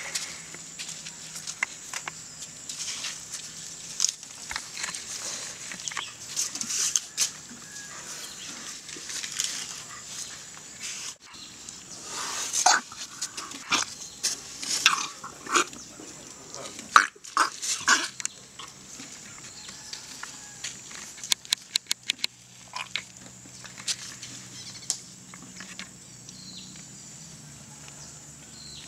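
A baby elephant close by, making short, scattered sounds and moving about. Several louder ones come about halfway through, followed by a quick run of clicks.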